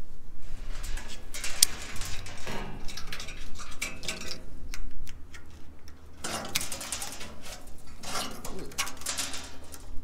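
A metal knife blade scraping packed corn kernels and chaff out of a seam between metal panels: irregular spells of metal-on-metal scraping and clinking, about four of them.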